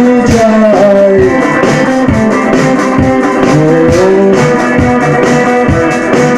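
Live rock band playing an instrumental passage: a guitar melody with bending notes over drums and bass.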